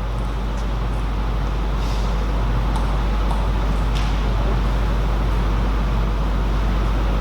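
Steady low rumble of background noise, with a few faint table tennis ball clicks from play elsewhere in the hall.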